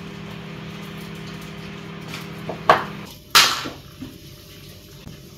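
A steady low hum that stops a little under three seconds in, then a few sharp knocks of a drinking glass and a ceramic mug on a stone tabletop as they are set down and picked up, the last knock the loudest with a brief ring.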